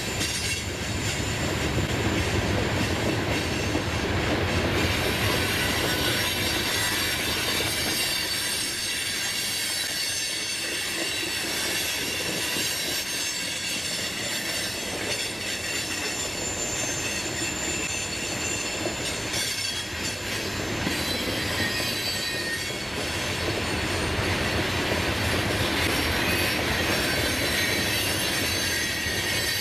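Long coal train's cars rolling past on the rails: a steady rumble of wheels with a continuous high-pitched wheel squeal.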